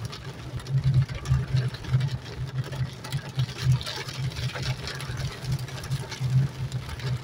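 Heavy rain falling on a car's roof and windshield, heard from inside the cabin as a steady hiss flecked with small impacts. Under it runs the low hum of the car's engine and tyres on the wet road.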